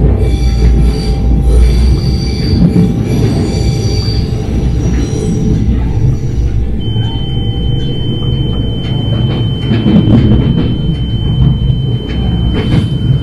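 Ride noise inside a 2008 Stadler GTW diesel-electric railcar running along the track: a heavy, steady low rumble. High-pitched wheel squeal sounds over it for the first few seconds, and a steady high whine comes in about seven seconds in.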